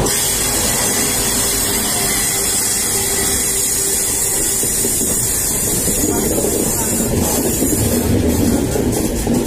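Passenger train in motion: a steady rush of wind and rail noise, with a few sharp clicks from the wheels about eight to nine seconds in.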